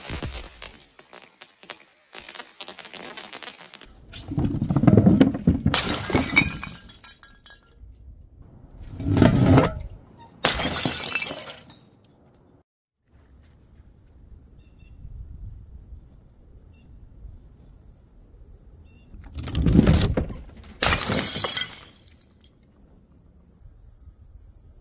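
Glass bottles smashing, three times: each is a heavy impact followed at once by a bright crash of shattering glass, with a long quiet gap before the last.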